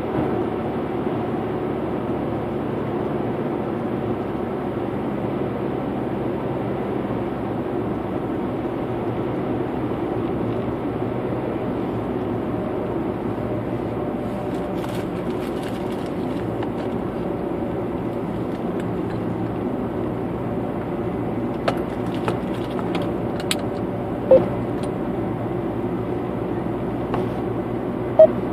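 Car driving steadily on an open road, its engine and tyre noise heard from inside the cabin as an even drone. A few short knocks come near the end.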